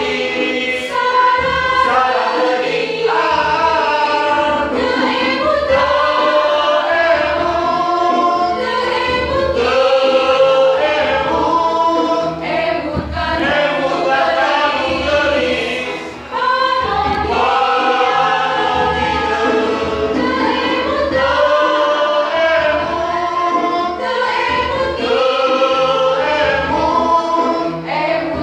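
A school choir singing a Sundanese song, with a brief dip in the sound about sixteen seconds in.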